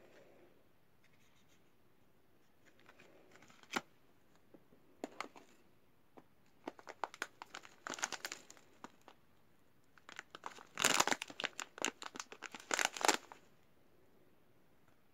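Crinkly wrapping handled and torn open by hand: scattered crackles that build into a dense, loud burst of crinkling near the end, then stop.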